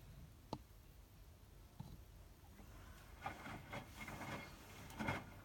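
Hotpoint WMFUG 942 washing machine running quietly in its load-sensing phase, with one sharp click about half a second in and a few soft knocks in the second half.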